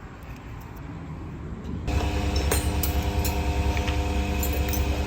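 Piston air compressor starting up suddenly about two seconds in, then running steadily with a deep hum and light metallic clinks.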